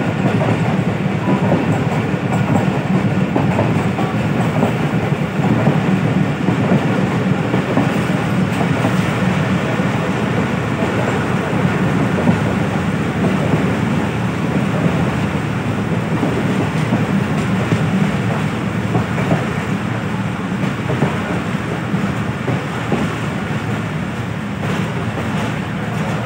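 Passenger train coach running on the rails, heard from an open coach door: a steady rumble of steel wheels on track with clickety-clack over the rail joints. It grows a little quieter near the end as the train slows into the station.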